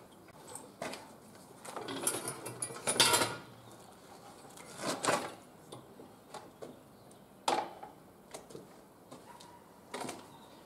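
A few scattered knocks, clicks and rustles of a person handling the parked scooter, its engine not running.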